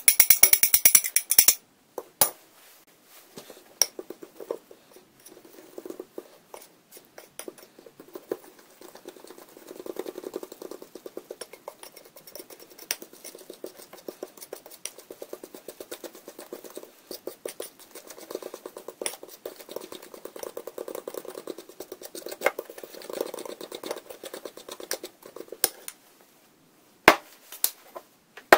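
Metal spoon stirring a thick batter in a ceramic bowl: a fast, steady run of clicks and scraping against the bowl that goes on for over twenty seconds, then stops. A loud clatter at the start and a few sharp knocks near the end.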